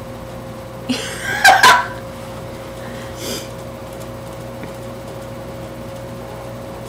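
A person's short vocal outburst, with a bending pitch, lasting about a second from about a second in. A faint second sound follows a couple of seconds later, over a faint steady electrical hum.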